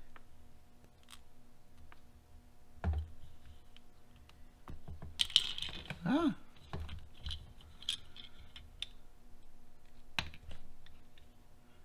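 Hand screwdriver and small plastic RC car parts clicking and tapping as screws are driven into the Traxxas Slash's front suspension module, with a louder scrape and a short squeak about five to six seconds in.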